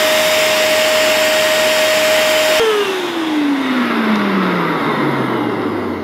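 Eureka Forbes Easy Clean Lite handheld vacuum cleaner running in blower mode, a steady motor whine with rushing air. It is switched off about two and a half seconds in, and the motor winds down with a falling whine.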